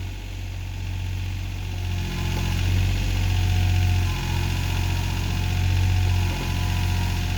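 John Deere backhoe's diesel engine running steadily while the operator works the hydraulics to lift the bucket. The engine note dips briefly about every two seconds and grows a little louder about two seconds in.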